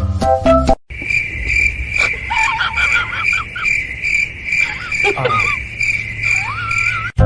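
Steady, high-pitched, rapidly pulsing insect chirping, with a few short squeaky calls over it, one falling and one rising near the end. Music plays for the first moment and cuts off.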